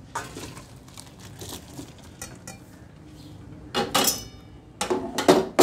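Boiled soya chunks and water poured from a metal pan into a perforated steel colander, followed by loud metal-on-metal clanks of the pan and colander knocking together, one ringing briefly about four seconds in and another cluster near the end.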